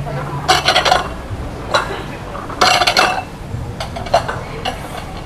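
Noodle bowls and utensils clinking and clattering in a few short bursts, the loudest about half a second in and again near three seconds.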